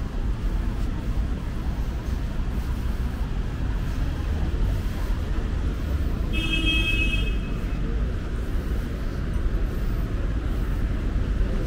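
Steady city traffic rumble, with a brief high-pitched squeal lasting about a second, a little past the middle.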